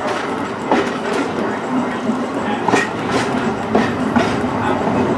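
Vintage electric streetcar rolling along the rails with a steady rumble, its wheels clicking sharply over rail joints several times.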